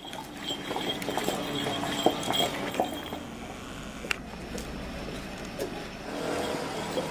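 Street ambience: scattered, indistinct voices of people nearby, with a faint high steady tone that comes and goes and one sharp click about four seconds in.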